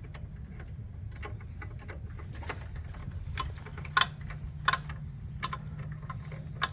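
Irregular light metallic clicks and taps of hand tools and bolt hardware being handled while a bolt is started by hand with an Allen bit on an extension. A few sharper clicks come about four seconds in and near the end, over a steady low hum.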